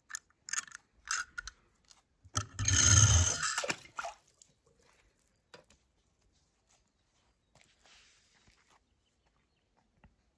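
Handling noises: a few sharp clicks, then a loud crunching rustle a little over two seconds in that lasts about a second and a half, then only a few faint taps.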